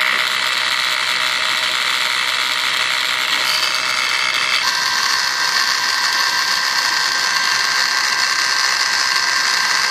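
Homemade electric gear pump running steadily with a high mechanical whine, sucking engine oil through a narrow 5 mm copper probe so that the oil only trickles out. Its tone shifts slightly about four to five seconds in.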